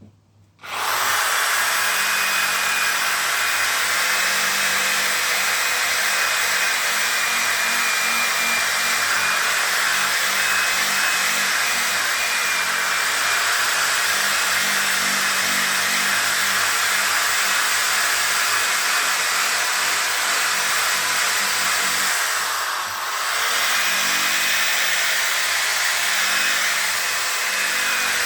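Electric power sander starting up and running steadily while wet-sanding a plastic headlight lens with 3000-grit paper, a high motor whine over a lower hum; late on the motor briefly bogs down in pitch under pressure, then picks back up.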